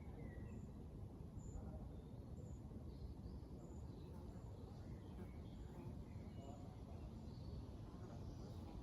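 Steady wind noise with birds calling over it; one bird repeats a short high note about once a second.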